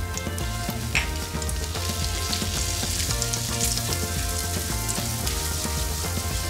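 Butter and flour sizzling in a nonstick frying pan while a silicone spatula stirs them into a roux; the sizzle grows stronger about two seconds in. A single sharp tap about a second in, over steady background music.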